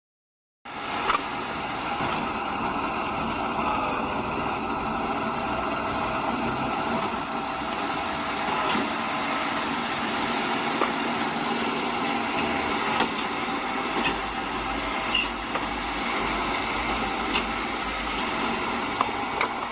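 Firewood processing machine running steadily, engine and hydraulics, with a few sharp knocks scattered through it. It starts abruptly just under a second in.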